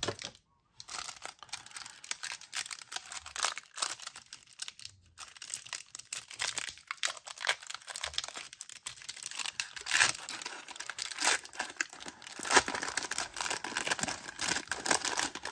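Foil wrapper of a trading-card pack crinkling and tearing as it is opened by hand: a dense run of crackles and rips, thickest in the second half.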